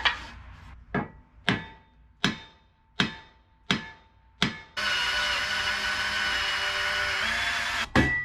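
A new wooden shovel handle being fitted: about seven sharp knocks, roughly one every three quarters of a second, then a power tool whirring steadily for about three seconds before it cuts off suddenly.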